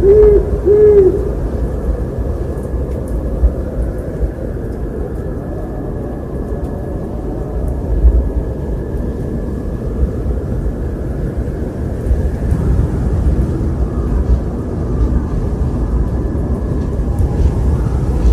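An owl gives two short hoots about half a second apart right at the start, over a steady low rumble of wind that grows a little stronger about two-thirds of the way through.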